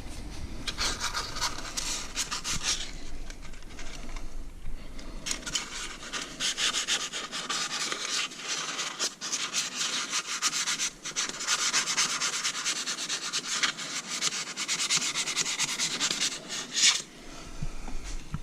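Rust being scrubbed off the metal parts of a VN-3000 vacuum pump by hand with an abrasive, in rapid back-and-forth rubbing strokes. The strokes slacken between about three and five seconds in, then carry on.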